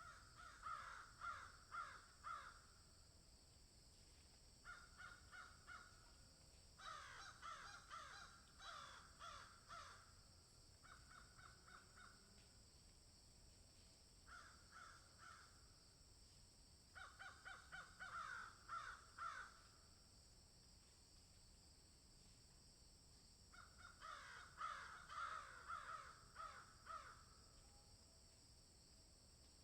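Crows cawing in repeated bouts of quick, harsh calls, each bout lasting a second or two with short pauses between, over a faint steady high hiss.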